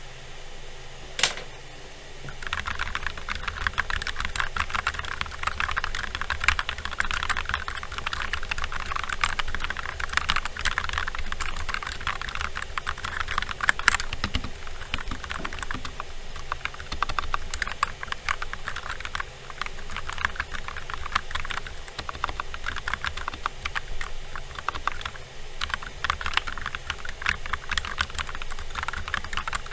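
Fast continuous typing on a mechanical keyboard: a Glorious GMMK tenkeyless board with C3 Tangerine linear switches, not yet lubed or filmed, under OEM-profile keycaps. A single key click comes about a second in, and steady rapid typing starts about two and a half seconds in.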